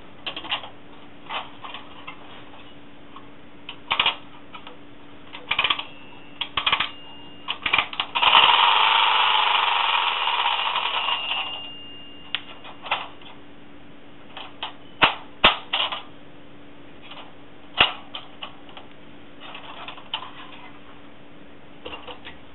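Tin clockwork fire truck being handled: scattered tinny clicks and rattles of the pressed-steel body and ladder. About eight seconds in, its clockwork mechanism runs with a loud rapid metallic whirr that dies away over about three seconds.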